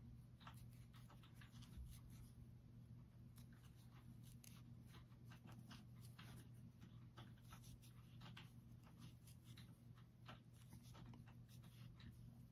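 Near silence: faint, irregular ticks and rustles of a metal crochet hook pulling aran yarn through stitches, over a low steady hum.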